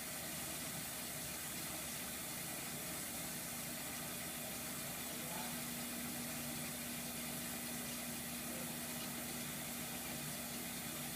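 1968 Frigidaire top-loading dishwasher running: a steady rush of water with a low, even motor hum underneath.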